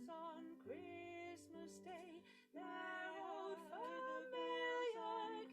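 Layered, looped female vocal harmony: several held, wordless sung notes with vibrato moving through chords, with a short break about halfway.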